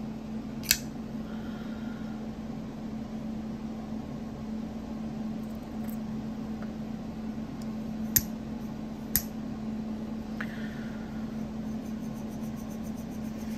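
A few sharp clicks from a Chaves Scapegoat folding knife as its blade is worked on a freshly lubed, tight pivot, over a steady low hum.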